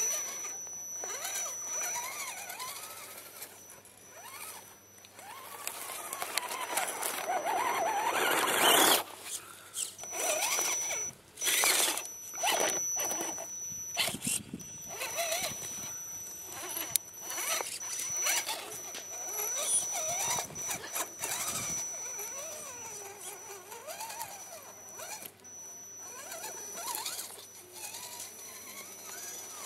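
RC crawler truck's drive motor and gears whining, the pitch rising and falling with the throttle, as its tyres crawl and scrabble over rock and dirt. A cluster of loud scrapes and knocks comes about nine to fourteen seconds in.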